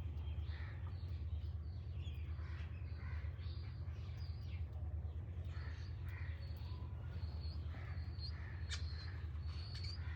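Crows cawing again and again in short calls, over a steady low hum.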